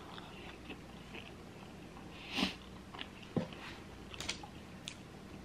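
Close-miked chewing of a mouthful of pizza: soft, wet mouth clicks and smacks, scattered and irregular, with one louder short rustle about two and a half seconds in.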